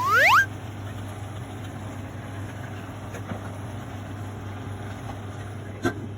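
A quick rising whistle-like sound effect at the start, then a steady low hum with a faint hiss, like a small motor or fan running, and a brief click near the end.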